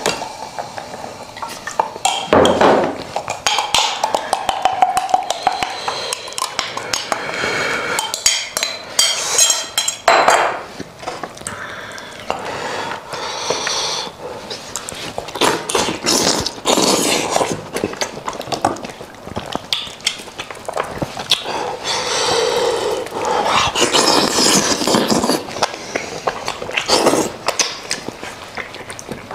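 A metal spoon stirring and clinking in a glass cup of garlic and hot oil, then a cooked goat's head being handled, its meat pulled apart and eaten, with a string of clicks, smacks and rustles.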